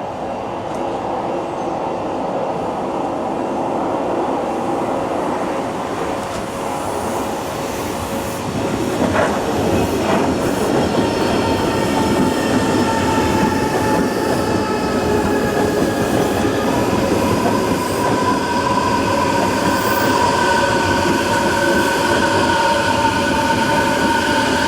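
Odakyu 4000 series electric commuter train running past, growing louder as it nears. A high steady squeal joins the running noise about ten seconds in and gets stronger.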